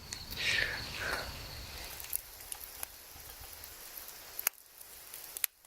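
Faint steady hiss of outdoor background noise with a few light clicks, dropping out briefly near the end.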